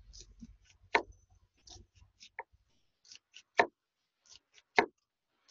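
Chef's knife making small cuts into a peeled onion on a wooden cutting board: an irregular string of light clicks and knocks as the blade goes through and meets the board, three of them louder.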